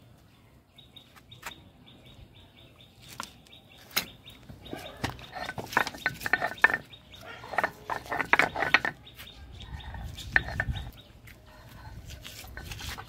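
A stone roller crushing and grinding chopped red onions on a flat stone grinding slab (shil-nora): a few single knocks at first, then a dense run of rapid knocks and scrapes from about four seconds in, settling into a lower rolling grind near the end.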